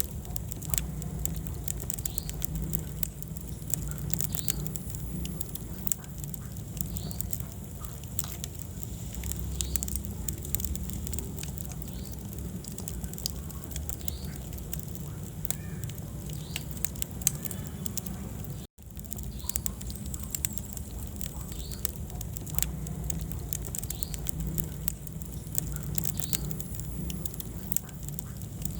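Wood fire burning in a fireplace: constant crackling with frequent sharp pops and snaps over a low rumble of flame. The sound cuts out for an instant about two-thirds of the way through, then carries on.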